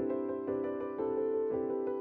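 Soft background music on piano or electric keyboard, a gentle melody with notes changing about every half second.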